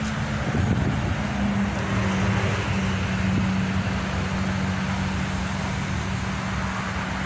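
Steady traffic noise from a highway, with a low, steady hum running through it.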